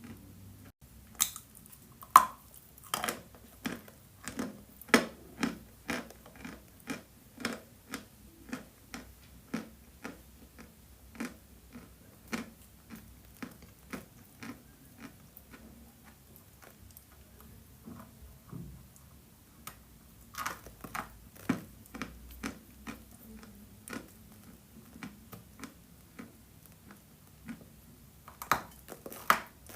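Close-up crunching of chalk being bitten and chewed: a run of sharp crunches about one to two a second, sparser through the middle stretch and coming thick again after about twenty seconds and near the end.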